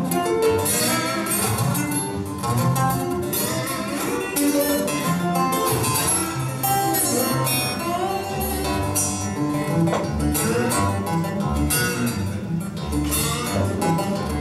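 Solo acoustic guitar fingerpicked at a quick pace: a busy stream of melody notes over a picked bass line, played without pause.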